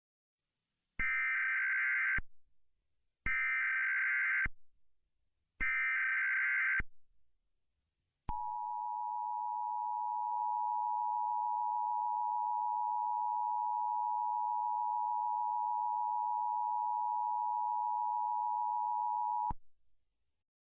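Emergency Alert System tones: three short bursts of the SAME digital header, each about a second long with a second's gap between them, then the steady two-tone attention signal held for about eleven seconds before it cuts off suddenly.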